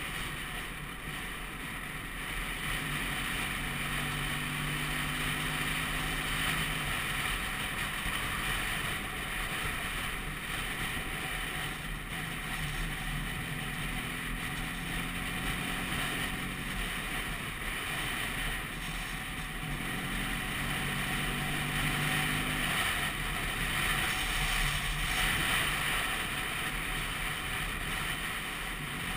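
Vespa PX200 scooter under way: a steady rush of wind noise on the microphone over the single-cylinder two-stroke engine, whose faint note swells and fades every several seconds.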